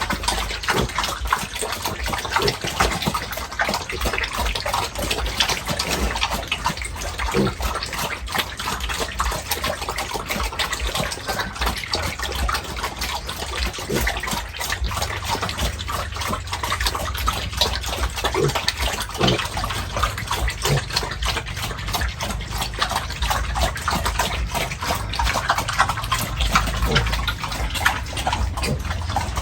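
Water running and splashing continuously, with many small irregular splashes.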